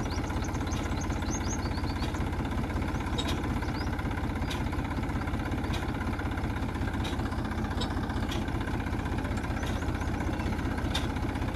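Tractor diesel engine running steadily while pulling a plastic-mulch-laying implement, with a light regular tick about every second and a quarter.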